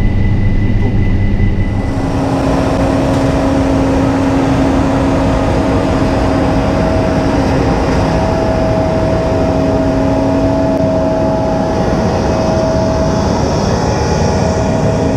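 John Deere S680i combine harvester running, a loud steady machine drone; about two seconds in the sound shifts and a steady whine comes in and holds.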